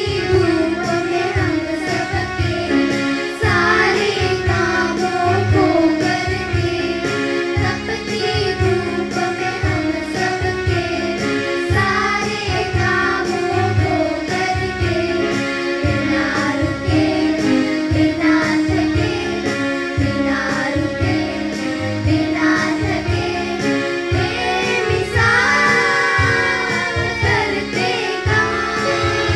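Children singing a Hindi song in a group, with instrumental accompaniment and a steady beat.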